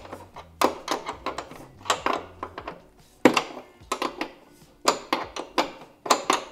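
A 13 mm spanner tightening the nuts on steel sidebar mounting brackets, giving bursts of quick metallic clicks, about one burst a second.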